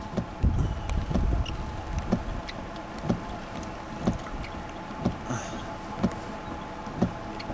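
Wind rumbling on the microphone over a steady low hum, with a sharp tick about once a second.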